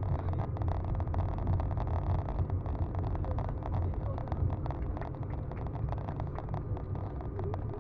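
Cabin noise inside an Airbus A220-300 taxiing on the ground: a steady low rumble from the engines and wheels, with many small clicks and rattles.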